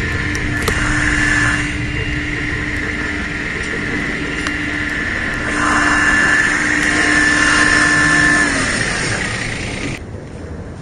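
An 18 hp compact tractor's engine running steadily under load as it hauls a stump out of the ground through block-and-tackle rigging. It grows louder about five and a half seconds in and falls away a few seconds later, and the sound changes abruptly near the end.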